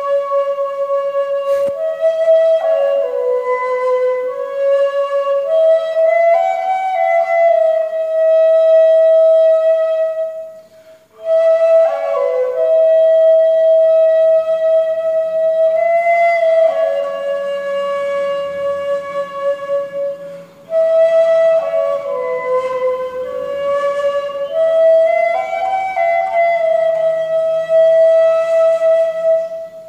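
Ney, the Turkish end-blown cane flute, playing a slow melody of long held notes that step up and down within a narrow range, with two short breaks for breath about 11 and 21 seconds in.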